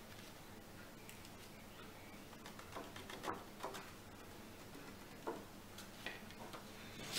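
A few faint taps and light paper clicks, most of them around the middle and a couple more near the end: cardstock and paper being handled and tapped to shake excess embossing powder off a stamped card.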